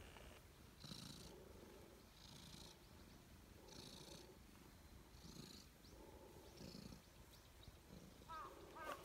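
Domestic calico cat purring faintly while being stroked, the purr swelling and fading in a slow even rhythm about every second and a half with its breathing.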